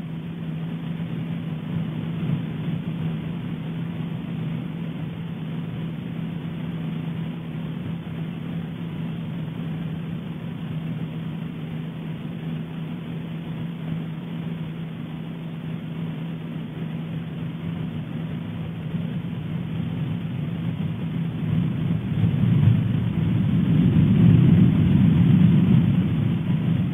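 Deep rumble of Popocatépetl volcano erupting, with a steady low hum under it. It swells louder about 22 seconds in, as an explosion sends up an ash column.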